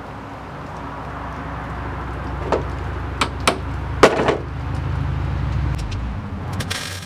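Four sharp hammer strikes on the sheet-metal patch of a 1953 Mercury M100 tailgate, about two and a half to four seconds in, over a steady low hum that stops about six seconds in. Right at the end a MIG welder starts a short crackling tack.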